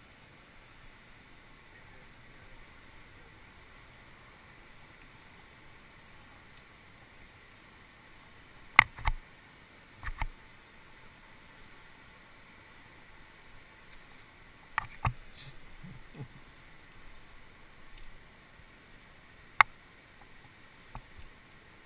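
About six sharp clicks and knocks in three groups, from climbing hardware and rope being handled close to the camera's microphone, over a steady faint hiss.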